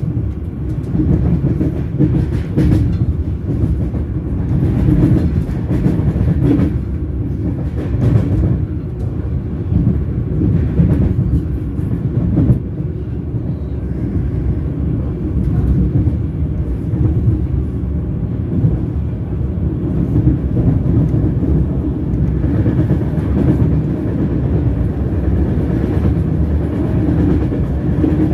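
Train wheels rolling on the rails: a steady low running noise with an occasional brief click a few seconds apart.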